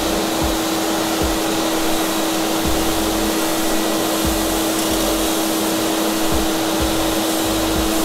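Wieland VacPro 16 portable industrial vacuum running on one speed (a single 1.2 kW blower), its wand held to a pile of aggregate sand: a steady air rush with a steady hum, and irregular low thuds underneath.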